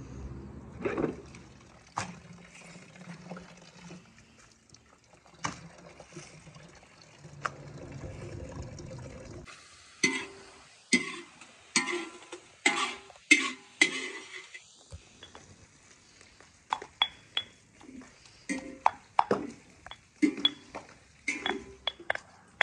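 Tap water running and splashing as greens are rinsed, then a metal spatula knocking and scraping in a steaming wok, with loud sharp strikes. Near the end a stone pestle pounds ginger and garlic in a stone mortar, about two knocks a second.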